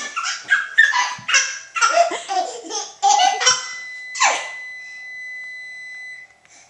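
Baby laughing and giggling in a run of short bursts, stopping about four and a half seconds in. A steady high-pitched tone holds from about three seconds in until near the end.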